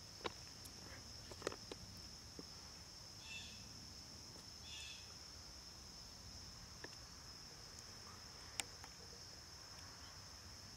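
Steady high-pitched insect chorus in the background, with two short chirps about three and a half and five seconds in and a few faint clicks.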